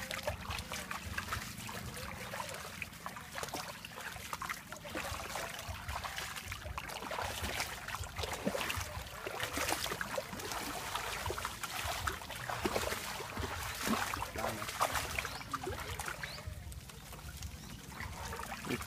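Bare feet wading through shallow water: an irregular run of splashing steps from two people walking.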